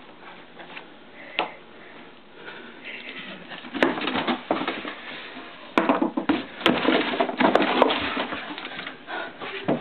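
A cardboard box being opened: the packing tape slit along the seam and the cardboard flaps pulled apart and folded back, rustling and scraping from about four seconds in, with several sharp clicks.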